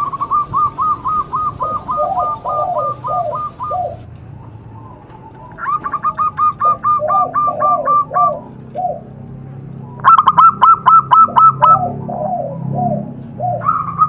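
Zebra doves (perkutut) calling: bursts of rapid, high staccato cooing notes, each followed by a slower phrase of lower coos, repeating about four times.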